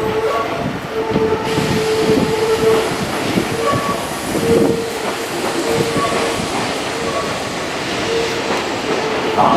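Electric train rolling slowly over depot track and pointwork, a steady rumble with wheel flanges squealing on and off in short repeated squeals.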